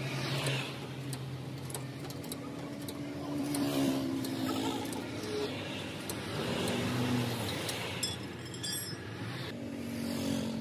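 Motor vehicle engines running and passing by, rising and fading over several seconds, with scattered light clicks.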